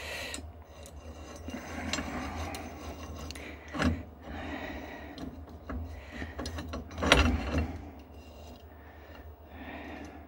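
Small drill-press vise being tightened by its screw handle: metal scraping and clicking as the jaws close on a copper terminal plate. Two louder knocks come about four and seven seconds in.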